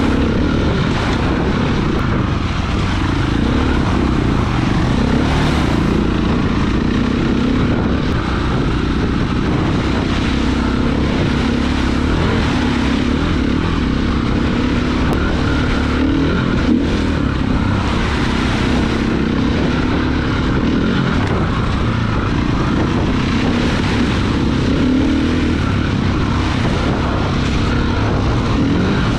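Single-cylinder four-stroke KTM enduro dirt bike engine running steadily under way, its pitch rising and falling a little with the throttle, over the hiss of tyres and spray on a waterlogged trail.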